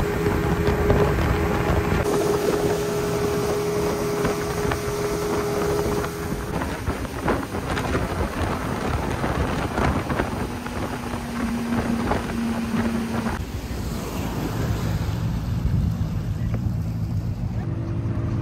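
Yamaha Enduro 115 two-stroke outboard running at speed on a speedboat, with wind and water rushing past. About fourteen seconds in the rushing dies away and the engine drops to a lower, steady hum as the boat slows.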